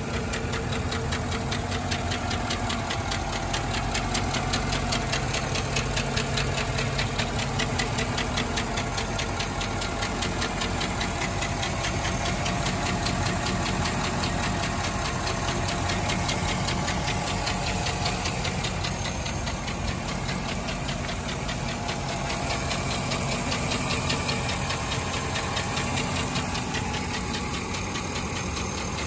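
2008 Chevrolet Silverado 1500 pickup engine idling steadily, heard from the open engine bay, with a fast, even ticking over the low hum.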